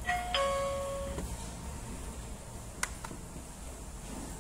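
Wireless calling-system receiver sounding a two-note ding-dong chime, a higher note then a longer lower one, as a red table call button is pressed: the receiver taking the button's call. A single sharp click follows nearly three seconds in.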